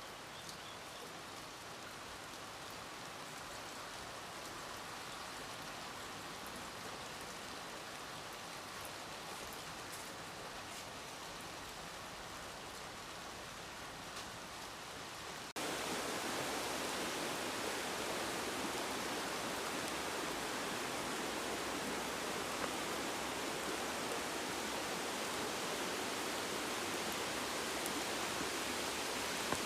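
Steady rain with faint scattered drop ticks; about halfway through it cuts suddenly to a louder, denser rush of water.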